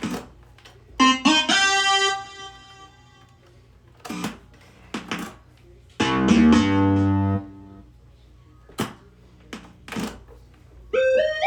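Korg RK-100S keytar synth presets, each tried with a single note. A bright note rings and fades about a second in, a loud deep bass tone sounds for about a second and a half around the middle, and a note stepping up in pitch comes near the end, with short sharp clicks in between.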